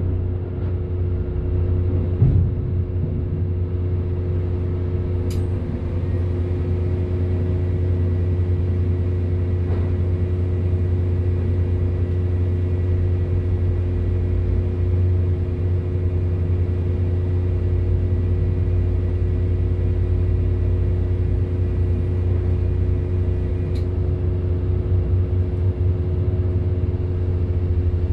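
Heavy diesel engine running at a steady, unchanging speed, a constant low drone heard from inside a vehicle cab. A few faint sharp clicks come through, about 2, 5 and 24 seconds in.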